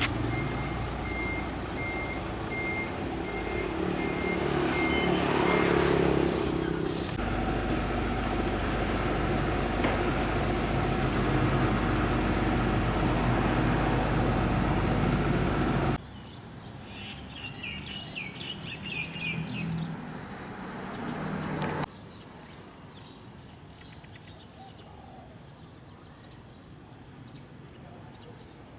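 A truck's engine running with a reversing beeper sounding steady beeps for the first several seconds, then engine noise continuing after a sudden cut. After another sudden cut the level drops and birds chirp, followed by quieter outdoor background.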